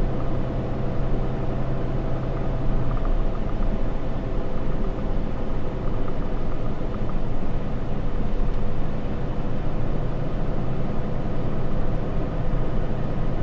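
Inside the cab of a 2013 Ram 3500 dually pickup being driven: steady road rumble and the drone of its 6.7-litre Cummins inline-six turbo diesel. A low engine note in the drone fades out about three seconds in.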